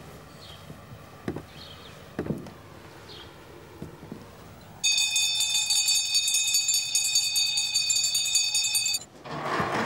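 A metal handbell rung continuously for about four seconds, starting about five seconds in and stopping abruptly, as a school bell marking the end of a class. Before it, only a few faint knocks.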